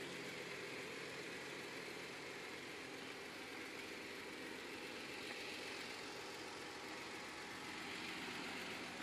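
Jeep Wrangler Rubicon's engine running steadily at low revs while the Jeep crawls slowly over rock and mud.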